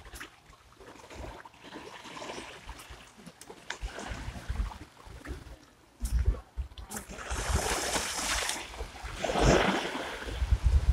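Small ocean waves washing onto a sandy beach, with wind buffeting the microphone in gusts. From about seven seconds in, the surf wash grows louder.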